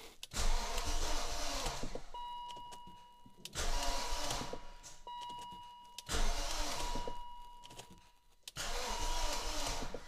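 BMW E39's V8 being cranked over on the starter with the fuel pump fuse pulled, four short cranks of about a second and a half each, to prime oil before the first start; it does not fire. A thin steady tone sounds in the pauses between cranks.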